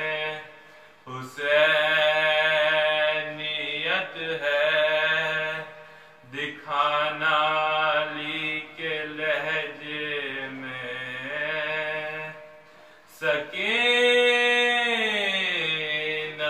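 A man's solo voice reciting an Urdu salam, a Muharram mourning elegy, in long drawn-out melodic lines that glide up and down. The lines break off for a breath about a second in, around six seconds in, and just before thirteen seconds.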